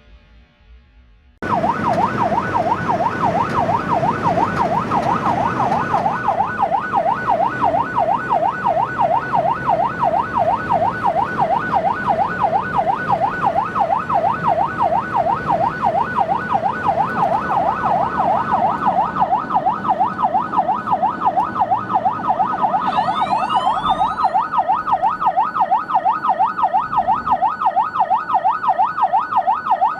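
An emergency vehicle's electronic siren in a fast yelp, warbling quickly up and down, starting abruptly about a second and a half in. About 23 seconds in, a second tone sweeps briefly upward over it.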